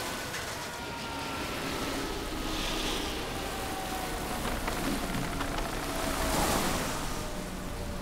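Ambient music bed: a few sustained tones slowly falling in pitch over a steady rushing noise, which swells briefly near the end.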